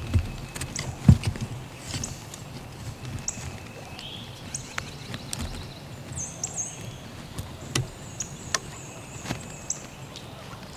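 Irregular knocks and rustling on the ground, like footsteps, loudest about a second in, with small birds chirping high and brief.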